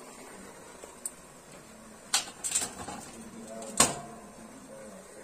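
Stainless-steel cooking vessels and a steel steamer plate knocking together: a few sharp metal knocks about two seconds in, then the loudest near four seconds, ringing briefly.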